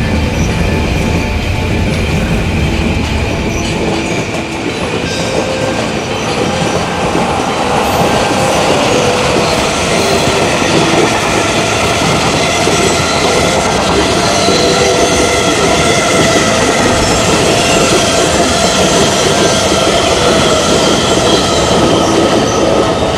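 Long container freight train rolling past, its wheels clattering over the rail joints with a steady wheel squeal.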